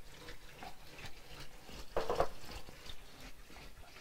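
A drinking glass being handled: a few light knocks, with one louder, briefly ringing clink about two seconds in as it is taken from the cabinet shelf.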